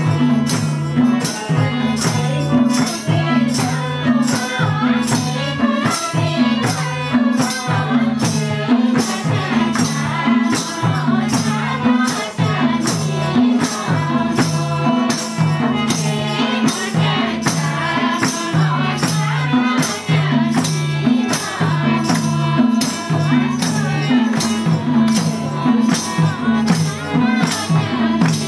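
Gurung folk song sung by a group of women to harmonium, with a steady percussive beat of jingles and hand claps.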